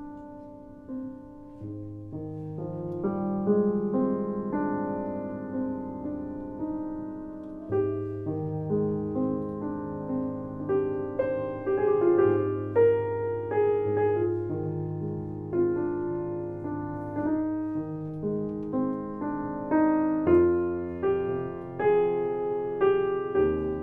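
Solo piano music: a slow melody of struck notes over held bass notes, growing fuller and louder a couple of seconds in.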